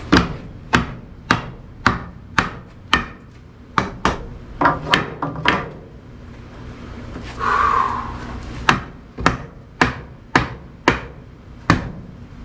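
Hammer blows on wooden framing lumber at the top of a door opening, steady strokes about two a second, driving the framing together. The strokes stop for about three seconds near the middle, then start again.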